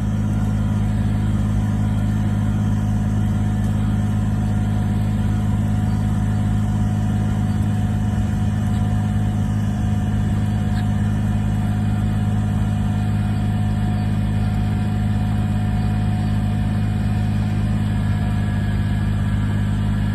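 Engine of a tilling machine running at a steady, unchanging speed, a constant low drone.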